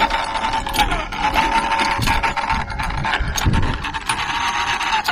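A sailboat's outboard motor running steadily under way, with a constant whine and clicking noise. It stops about five seconds in.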